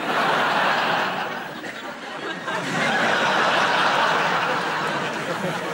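Studio audience laughing loudly, the laughter easing off a little and then swelling again about two and a half seconds in.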